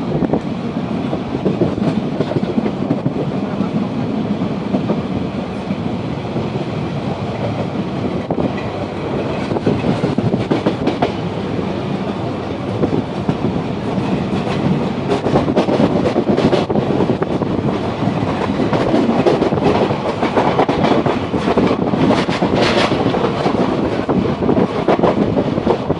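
Express passenger train running at speed, heard from a coach window: a steady rumble and rattle of wheels on the track, with sharp clickety-clack over the rail joints coming more often in the second half.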